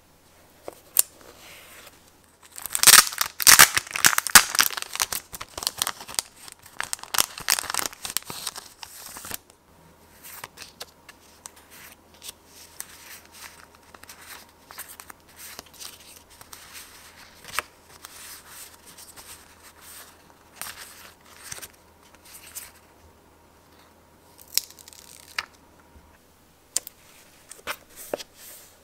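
Crinkly tearing and rustling of a sticker pack's wrapper for several seconds near the start, then quieter rustling of paper photo stickers being sorted and handled, with scattered light clicks and taps.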